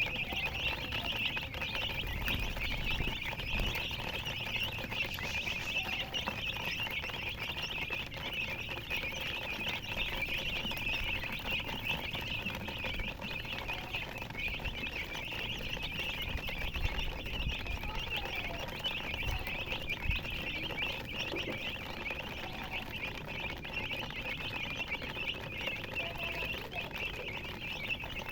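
A brood of baby chicks chirping all at once, a dense, unbroken chorus of high-pitched peeps at an even level.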